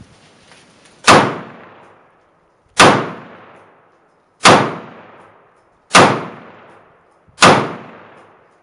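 Smith & Wesson M&P15T AR-15 fitted with a Troy Medieval muzzle brake, fired five times in slow, evenly spaced single shots about a second and a half apart. Each report echoes and dies away under the range's roof.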